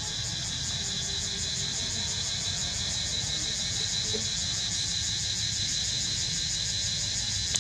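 Steady chorus of insects trilling high with a fast, even pulse, over a low steady rumble.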